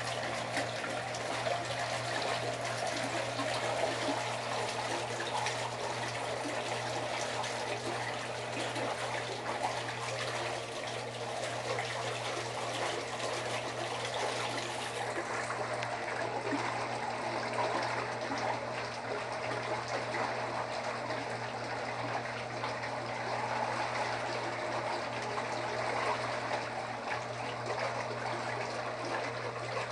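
Spa pump running through a timed 10-minute cycle: water circulating and trickling steadily over a constant low motor hum.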